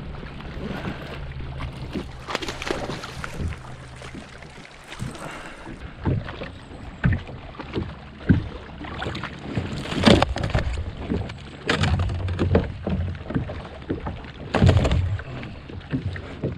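Knocks and splashy bursts aboard a kayak as a hooked bass is brought in and landed, the loudest about ten, twelve and fifteen seconds in; a steady low hum runs under the first few seconds.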